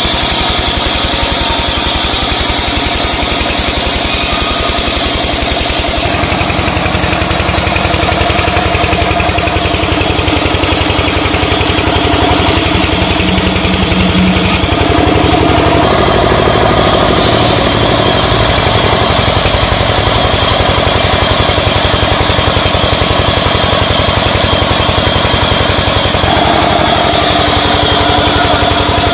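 Sawmill band saw running and cutting through a large timber beam: a loud, steady machine drone that shifts in tone about six seconds in and again around sixteen seconds in.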